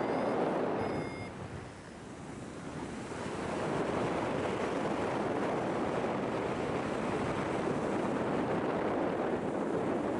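Steady rushing wind on the microphone of a paraglider in flight. It eases off about a second in and builds back up a couple of seconds later.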